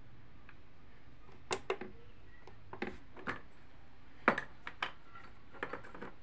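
A dozen or so light knocks and clicks at irregular intervals, over a faint steady low hum.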